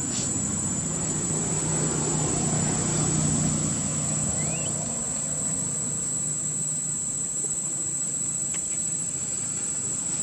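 Insects droning steadily at one high pitch, under the low hum of a motor vehicle's engine that swells to a peak about three seconds in and then fades away. A brief rising chirp comes a little after the middle.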